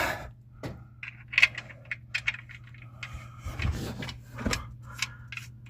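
Metal clinks and scrapes of a socket wrench working the oil drain plug back into a Ford Ranger's oil pan, irregular small clicks with a few louder knocks.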